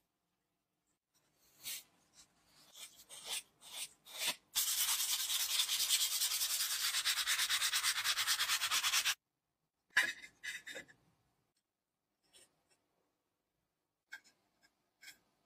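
Rusty tin-plate toy submarine part scraped with a blade in a series of short strokes, then sanded by hand with a sanding pad in fast, even back-and-forth strokes for about four and a half seconds. A sharp click and a few light taps follow.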